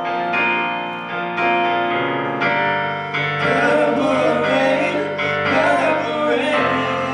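Live music: sustained keyboard chords with a male voice singing, the voice wavering through a held, wordless run in the middle.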